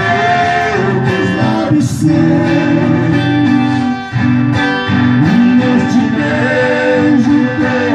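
A live duet in the Brazilian moda de viola style: two acoustic guitars strummed together while two men sing, with a short break in the strumming about four seconds in.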